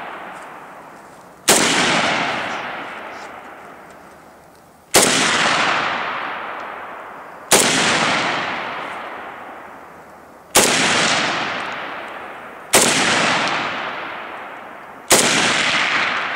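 Norinco AK-47 rifle firing six single shots two to three and a half seconds apart. Each sharp report trails off slowly in a long echo.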